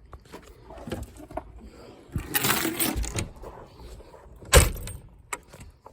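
Rear liftgate of a 1984 Ford Bronco II: a scraping rattle of the gate and its latch about two seconds in, then one loud slam as the gate is shut and latches, near the end.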